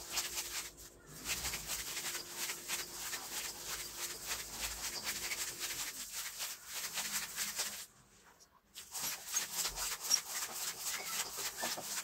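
Ground beef with grated onion and spices being kneaded by hand in a stainless steel bowl: a run of short, wet squishing and rubbing strokes. The strokes break off for under a second about eight seconds in.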